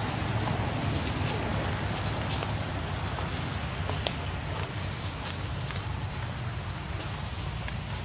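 Steady outdoor ambience: a constant high-pitched insect drone over a low rumble, with a few faint clicks and crackles.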